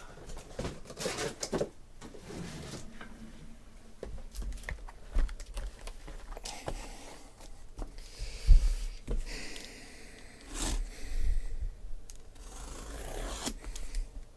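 Cardboard boxes being handled and moved on a table: sliding and scraping with scattered knocks and taps, and one louder thump about eight seconds in as a box is set down.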